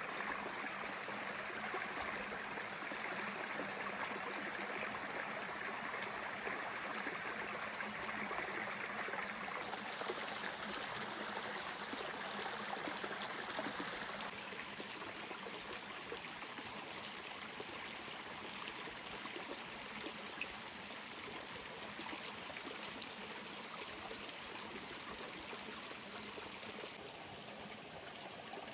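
Curry Creek, a mountain stream, flowing steadily, becoming a little softer and duller about fourteen seconds in.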